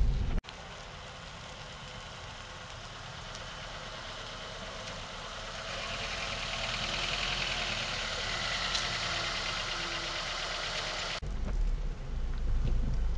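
A car coming closer: a steady hiss of engine and tyres that slowly grows louder over about ten seconds. Near the end it gives way to a low engine idle heard from inside the car's cabin.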